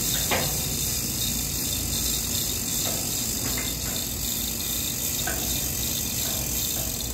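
A steady high hiss, with a few faint short clicks or knocks scattered through it.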